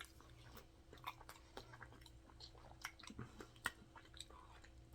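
A person chewing a mouthful of cheeseburger, heard as faint, scattered mouth clicks and smacks.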